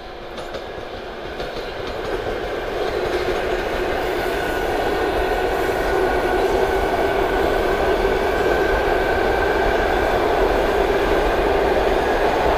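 Electric commuter train running past on the line, its rumble growing steadily louder as it comes near, with a steady whine over it.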